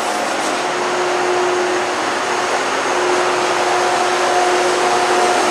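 Steady rushing noise of a ship's ventilation and machinery heard inside a passageway, with a faint hum that fades out and back in underneath.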